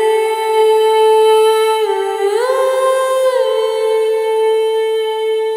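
A single voice humming a slow melody in long held notes that glide smoothly from one pitch to the next. It dips briefly about two seconds in, rises to a higher note for about a second, then settles back and holds.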